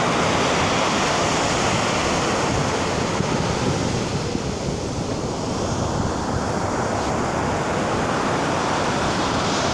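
Ocean surf breaking and washing up on a beach: a steady rush of waves that eases a little around the middle and builds again toward the end.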